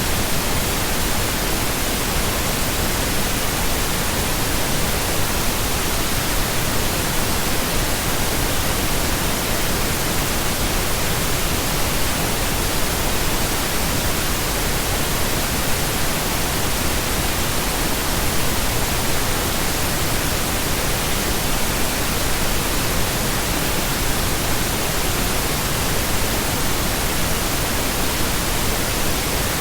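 Steady pink noise: an even, unchanging hiss across all pitches, with no breaks or variation.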